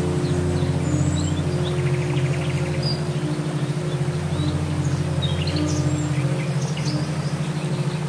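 Soft relaxation music, a low pulsing drone with slowly changing held notes, mixed with birds chirping. A short rapid trill comes about two seconds in.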